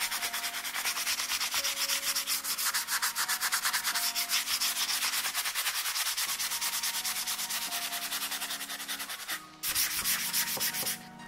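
Abrasive sanding sponge rubbed rapidly back and forth by hand over a painted wooden cabinet door, scuffing off the dried patina along the grain to distress the finish. It breaks off briefly about nine and a half seconds in, then resumes and stops near the end.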